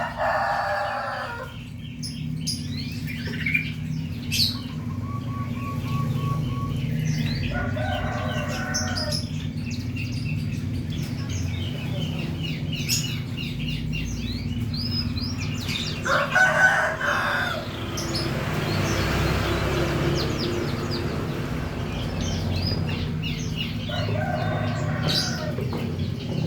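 Green canary singing in rapid high chirps and trills, while a rooster crows four times, about every eight seconds. A steady low hum runs underneath.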